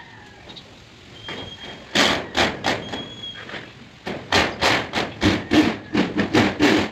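Corded drill driving a self-drilling tek screw into corrugated metal roofing sheet, coming in a quick run of harsh pulses about three a second. It starts about two seconds in, dips briefly, then comes back louder for the rest.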